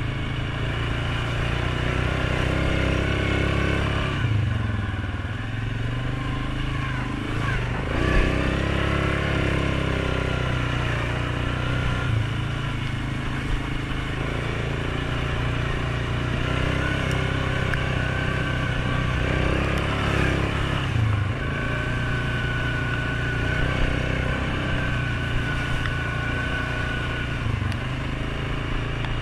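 2019 Suzuki KingQuad 750 ATV's single-cylinder engine running under way, its note falling and climbing again a few times as the throttle is eased and reapplied.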